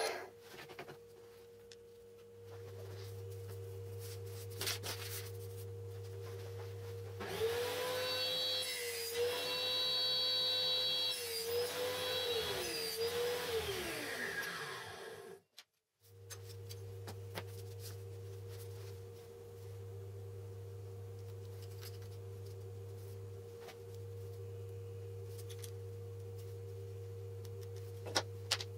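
A workshop power tool's motor spins up about seven seconds in, runs for about six seconds with its pitch dipping now and then as if loaded, then winds down with a falling whine. A steady low electrical hum runs under it and continues after a brief dropout.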